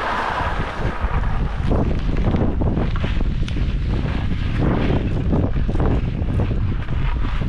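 Heavy wind rumble on the microphone of a head-mounted camera while skiing fast, with repeated scraping hiss of skis carving over hard, choppy, thinly covered snow.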